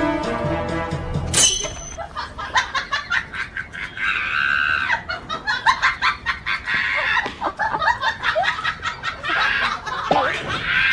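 Background music for about the first second and a half, then it cuts off. From there, chickens squawk and cluck in agitated, irregular bursts, over a clatter of quick scuffling clicks as a dog tussles with them.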